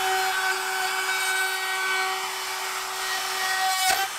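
Trim router running with a steady whine, its roller-guided trimming bit cutting the plastic bed-rail cap back flush to the steel edge of the stake pocket. The cutting noise swells briefly near the end.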